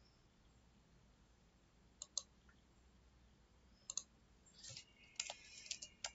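Faint clicks of a computer mouse: a pair of clicks about two seconds in, another pair about two seconds later, then a quicker flurry of clicks over the last second and a half.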